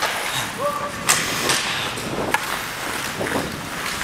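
Hockey skates carving and scraping across the ice in a steady hiss, with sharp knocks about a second in and again past two seconds.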